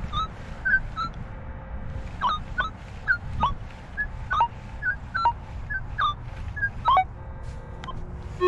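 Minelab E-TRAC metal detector giving a run of short beeps at shifting pitches, several sliding quickly downward, as the coil is swept back and forth over buried targets.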